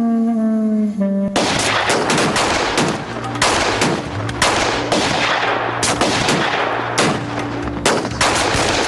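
A woodwind melody finishes a falling phrase, then about a second in it cuts to heavy rifle fire: many shots overlapping in a dense, continuous volley.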